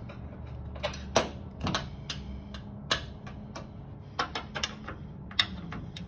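Irregular metallic clicks and taps of a small wrench and a hand knocking about inside a washing machine cabinet while groping for the bolt that holds the top.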